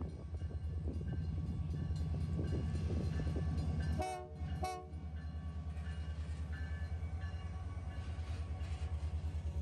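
Canadian Pacific GP20C-ECO diesel locomotive rumbling past at low speed with a steady, pulsing engine beat. About four seconds in, its horn sounds two short blasts.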